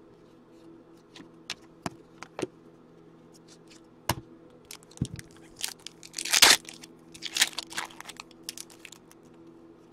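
Foil wrapper of a hockey trading-card pack crinkling and tearing in the hands, in scattered short crackles, with a louder burst of tearing and crinkling about six and a half seconds in and more crinkling just after. A faint steady hum lies beneath.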